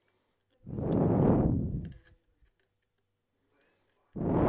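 Two bursts of blown air rushing over the microphone, each lasting about a second, the first about half a second in and the second near the end, with faint small clicks between them.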